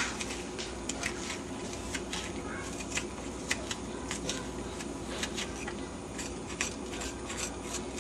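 Short, irregular scraping clicks of a thin metal blade gouging the flesh out of a cut eggplant section, hollowing it for stuffing.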